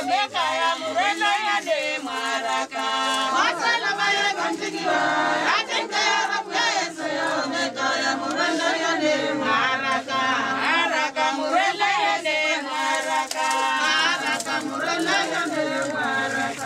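Crowd of mourners singing together, many voices overlapping with wavering pitch.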